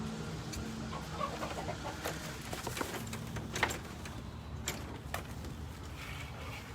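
Hens clucking in a chicken coop, with short scattered calls and sharp clicks.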